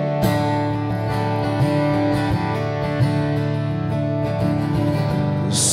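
Acoustic guitar strumming chords in a steady rhythm, the chords ringing on; a singing voice comes back in at the very end.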